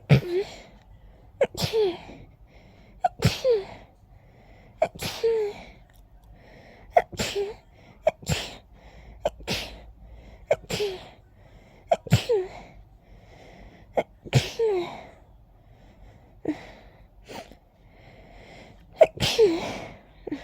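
A person sneezing over and over in a rapid pollen-allergy sneezing fit: about a dozen sneezes, one every second or two, each a sharp burst ending in a short falling voiced 'choo', with the loudest near the end.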